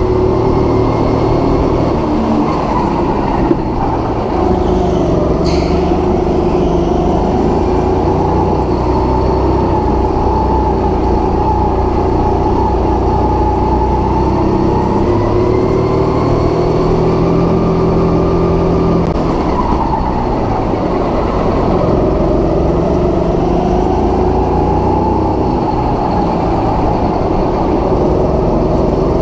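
Go-kart engine running at racing throttle, its pitch rising and falling again and again, over a low rumble from the onboard camera. A sharp click about three and a half seconds in and a brief high squeak a couple of seconds later.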